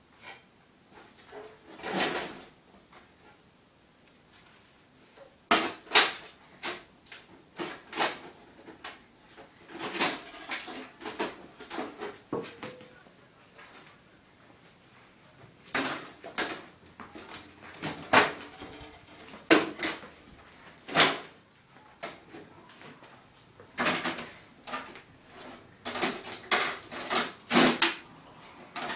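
Sheet-metal desktop computer case being pulled apart by hand. Its panels and parts give irregular clanks, knocks and rattles in bursts, the loudest about two-thirds of the way through.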